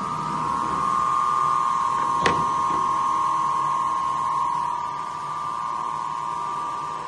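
A steady high tone held throughout, with one sharp click about two seconds in.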